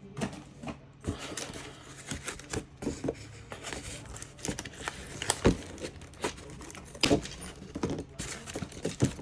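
Toy packaging crinkling and rustling as the contents of a Beyblade X pack are pulled out, with scattered sharp clicks and knocks of plastic parts; the loudest snaps come about five and a half and seven seconds in.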